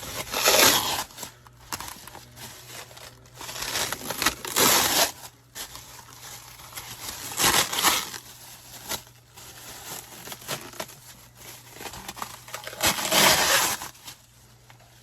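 Packaging being torn open and crumpled by hand while a steering wheel is unboxed, in irregular rustling, crinkling bursts a few seconds apart.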